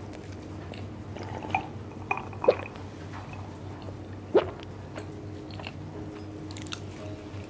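Close-miked chewing and mouth sounds of a person eating, with a few sharp clicks and knocks, the loudest about two and a half seconds in and another about four and a half seconds in.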